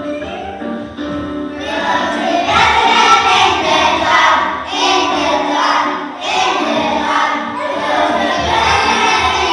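Young children singing together as a choir with instrumental accompaniment; the voices come in about one and a half seconds in, after a short instrumental lead-in.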